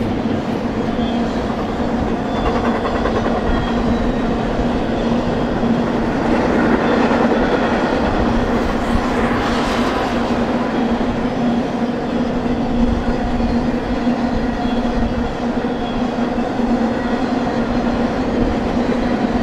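BNSF intermodal freight train rolling past: a steady rumble and clatter of steel wheels on the rails from a long string of double-stack container and trailer cars.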